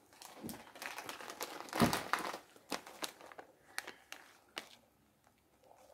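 Small plastic snack bag crinkling as it is picked up and held up, loudest about two seconds in, then a few scattered crackles.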